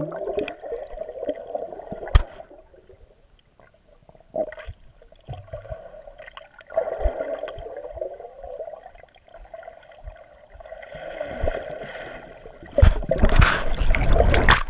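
Muffled gurgling and bubbling of lake water heard underwater through a GoPro's waterproof housing, with a few knocks. Near the end there is loud splashing as the camera comes up through the surface.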